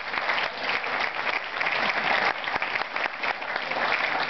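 Large audience applauding, a dense steady clapping of many hands.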